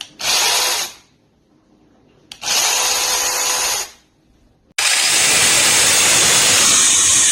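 Cordless 6-inch brushless mini chainsaw running in three bursts: a short one at the start, a longer one about two seconds in, and a long steady run starting about five seconds in.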